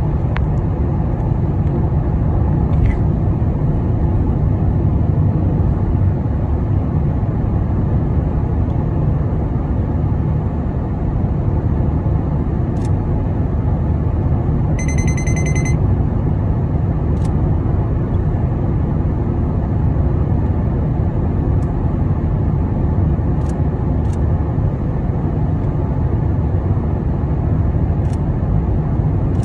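Steady road noise of a car driving at highway speed, heard from inside the cabin: a low, even rumble of tyres and engine. About halfway through, a short high electronic beep sounds for about a second.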